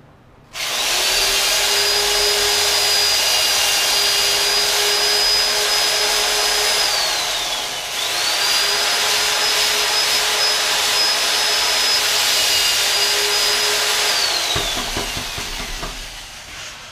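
Electric drill running with its bit cutting a groove along the lip line of a foam deer mannequin. It runs twice for several seconds each time: the motor whine spins up to a steady pitch and falls as it winds down, with a hiss of cutting underneath.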